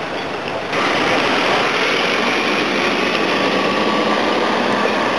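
Engine of a flatbed tow truck idling, a steady running sound that steps up in level about a second in.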